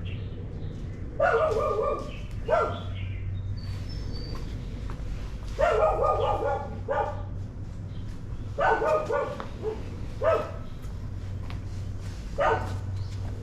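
A dog barking in pairs, a longer bark followed by a short one, four times about three seconds apart, over a steady low hum.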